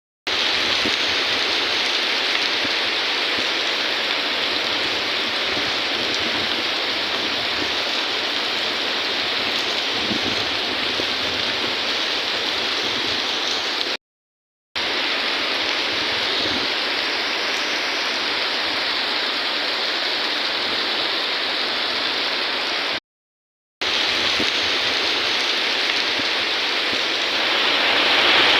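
Steady rain falling, an even hiss that stops dead twice for under a second and grows louder near the end.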